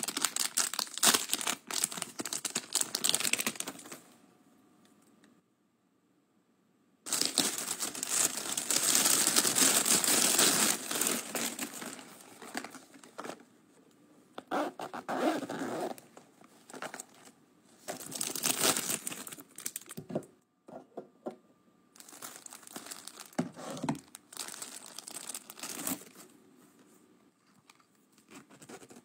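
Clear plastic packaging crinkling and rustling as it is handled and opened. It comes in several bursts with quiet gaps between them, the longest and loudest about seven to twelve seconds in.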